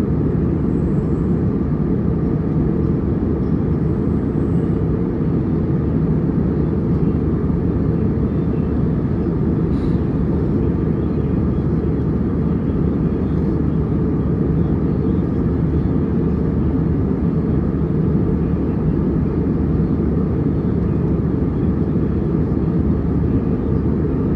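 Airliner cabin noise in flight: a steady, even low rush of engines and airflow that holds unchanged.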